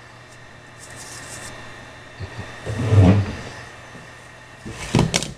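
Handling noises from laptop repair work: the plastic bottom cover and the laptop being moved on the workbench, with a dull thump about three seconds in and a quick cluster of sharp clicks and knocks near the end.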